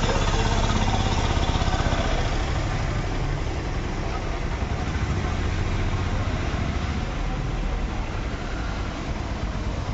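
Steady low rumble of an engine idling.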